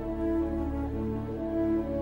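Slow background music of long, held notes.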